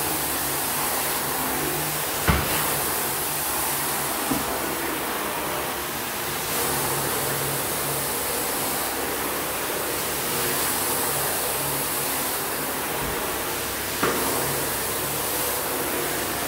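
Wet vacuum pulling foamy cleaning solution off a tile floor through a floor wand: a steady rush of suction over a low motor hum. Two sharp knocks cut through it, about two seconds in and again near the end.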